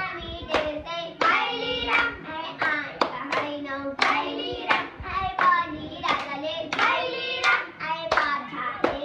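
Group of girls singing a Nepali Deusi-Bhailo song in unison while clapping their hands in time, about two claps a second.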